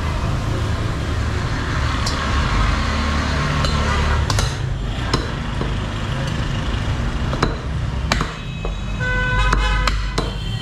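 Butchers' cleavers chopping beef on wooden log chopping blocks: scattered sharp chops at irregular intervals over a steady low background rumble.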